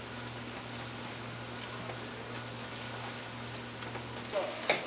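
Minced tteokgalbi meat mixture being kneaded by gloved hands in a stainless steel tray: a continuous wet, crackling squish over a steady low hum, with one louder sharp slap near the end.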